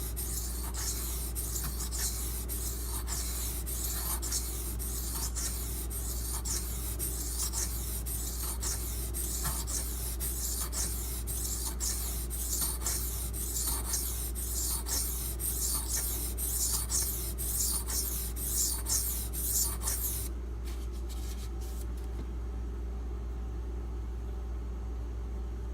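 Steel knife blade of 8Cr13MoV being stroked back and forth on a Beston 500-grit water stone, a run of rhythmic gritty scrapes, about two a second, that stops about 20 seconds in.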